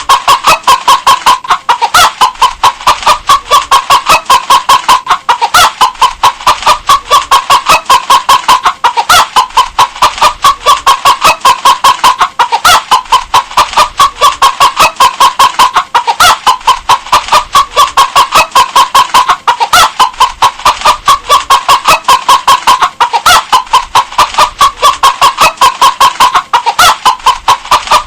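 A hen clucking steadily, about three to four short clucks a second, the same short phrase recurring every few seconds.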